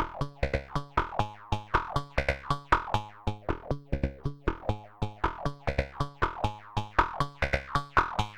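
Eurorack synthesizer sequence played through the SetonixSynth Marsupial filter: a fast run of short plucked notes, about five or six a second, each opening bright and quickly closing down as an ADSR envelope sweeps the filter cutoff.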